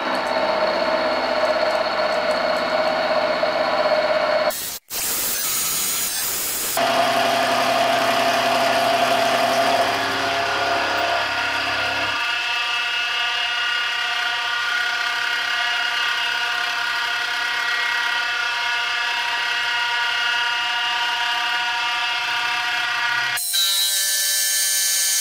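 Sieg X1 mini mill running, its cutter milling the top face of a solid steel block as the table is fed by hand: a steady motor whine over cutting noise. The sound drops out briefly about five seconds in and shifts abruptly in tone a few times.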